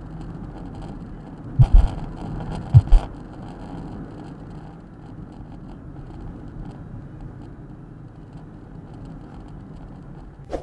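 Steady road and engine noise of a car driving on a highway, heard from inside the cabin by a dashcam. A couple of seconds in come two loud double thumps about a second apart.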